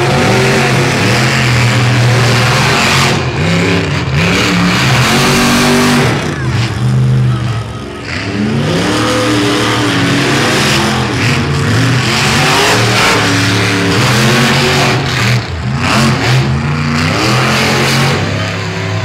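Monster truck engines running hard through a race, loud, their pitch rising and falling over and over as the throttle is worked.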